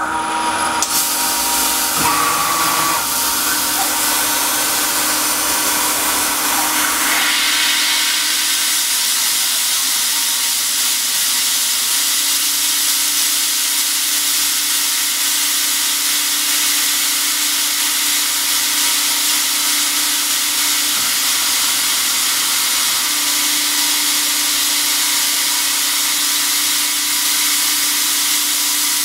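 Self-converted RF45 CNC mill cutting panels into a 1911 pistol slide with a small end mill, under a steady loud hiss from the air nozzle blowing on the cutter and a low steady hum. The hiss starts about a second in and grows louder about seven seconds in.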